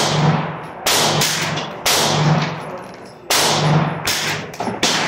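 A GSG-16 semi-automatic .22 LR rifle firing about six single shots at an uneven pace, each crack followed by a ringing echo.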